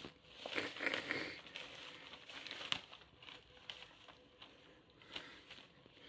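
Soft rustling and scraping with a few sharp light taps, from a kitten pawing and scrabbling at a cloth pushed along a wooden window sill; the rustling is strongest about a second in.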